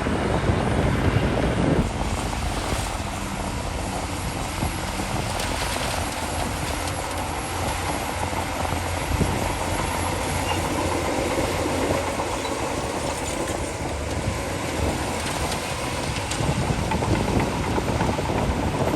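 Shantui DH17C2 crawler bulldozer's diesel engine running steadily under load, with the clatter of its steel tracks.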